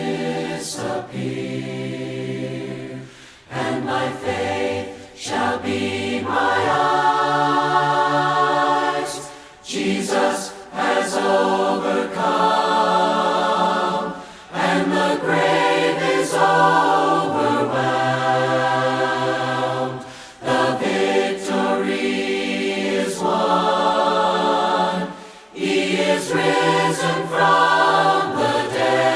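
A group of voices singing a hymn in harmony without instruments, in long held phrases with short breaks for breath every few seconds.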